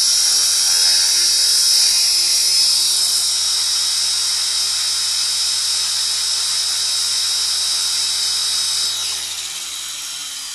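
Align T-Rex RC helicopter's motor and rotor blades running in a steady high-pitched whine, then spooling down with the pitch falling from about nine seconds in.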